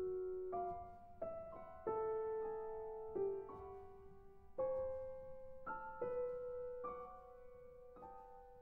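Solo piano playing slow, sparse chords and notes in the middle register, each struck and left to ring and fade, about one a second.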